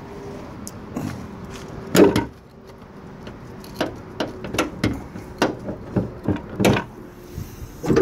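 The car's steel hood being unlatched and raised. A single sharp knock comes about two seconds in, then a run of irregular metallic clicks and knocks from the latch and hinges.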